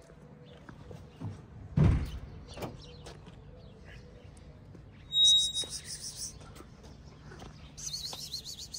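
Birds chirping: a brief high whistle followed by a rapid high trill about five seconds in, and a wavering high trill near the end. A single dull thump about two seconds in, with a faint low hum underneath.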